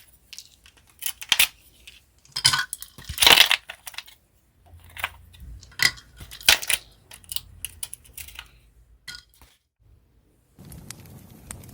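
Clinks, taps and knocks of cups, a spoon and utensils while coffee is being made by hand. About ten and a half seconds in, a steady campfire crackle begins.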